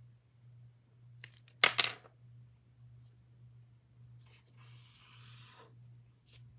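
A sheet of paper handled close to the microphone, with a sharp rustle about a second and a half in, then a pen or paper scratching for about a second past the middle. A steady low hum runs underneath.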